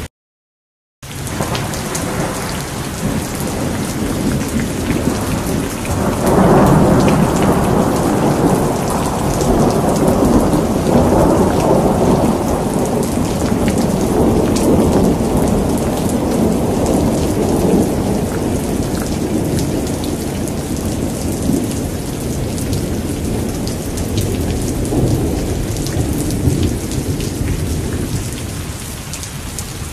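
Steady heavy rain hissing, with a long rolling thunder rumble that builds about six seconds in and slowly fades away over the next twenty seconds. The sound cuts out completely for about a second at the very start.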